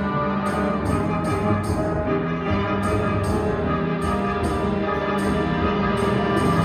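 School concert band playing full sustained chords, brass and woodwinds over low brass. Short crisp high percussion strokes cut through, often in pairs.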